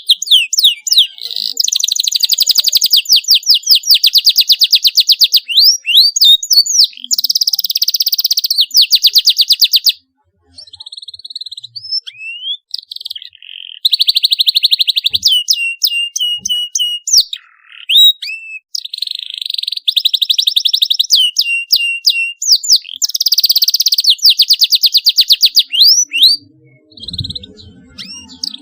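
Canary singing: fast trills of rapidly repeated high notes mixed with rising and falling chirps, broken by short pauses. There is a brief near-silent gap about ten seconds in, followed by a few seconds of quieter notes.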